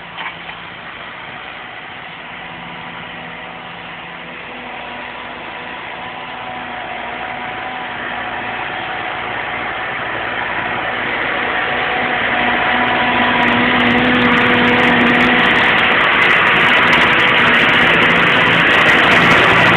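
Tractor engine running steadily at a constant pitch, pulling a disc plough. It grows steadily louder throughout.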